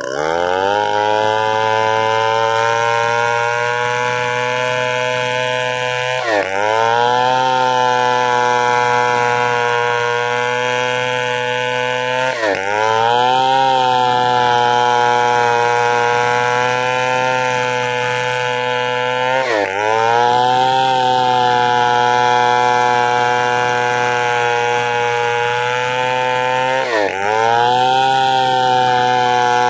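Chainsaw engine running at high revs. Four times, about every six to seven seconds, its pitch drops sharply and then revs back up and holds steady.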